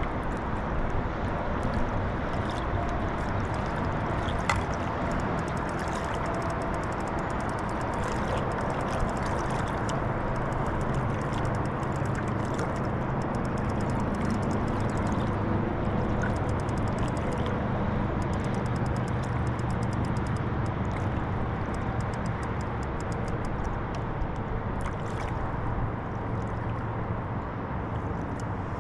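Lake water lapping and gurgling against a kayak hull, over a steady low rumble, with many small ticks of splashing droplets.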